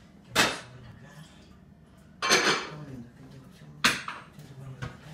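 Kitchenware clattering as dishes, pots and utensils are handled and set down on a counter: three loud, sharp knocks a second or two apart, the middle one a longer clatter, and a fainter knock near the end.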